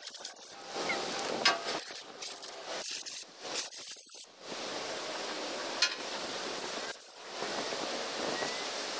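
Hand scrubbing and rubbing on the metal surface of a boat's gas tank, an uneven rustling scuff in stretches with brief pauses and a couple of sharp clicks.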